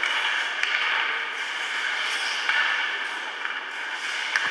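Ice hockey play in a rink: a steady scraping noise of skates on the ice, with a sharp clack of a stick on the puck under a second in and another near the end.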